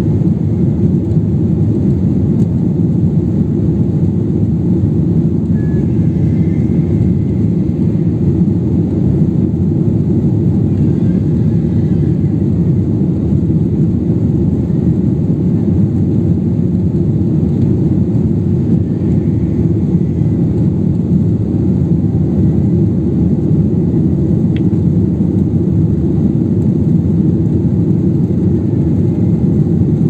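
Jet airliner heard from inside the passenger cabin during the climb just after take-off: the engines and airflow make a loud, steady, low drone.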